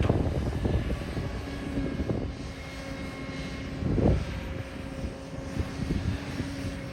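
Diesel engine of a working excavator running, with a steady whine coming in about a second and a half in, irregular knocks throughout, and a heavier thud about four seconds in.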